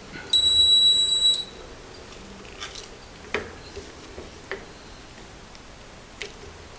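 A single high-pitched electronic beep lasting about a second, followed by a few faint, scattered clicks as the crank bolt is worked tight with an Allen wrench.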